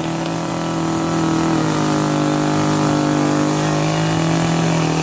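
Two-stroke chainsaw engine running at a steady, unchanging speed.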